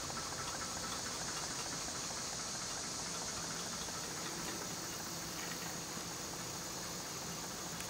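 Antique Jost hot-air fan, its small Stirling engine and blades running fast and almost silently: a quiet steady hiss and whir with a faint low hum underneath.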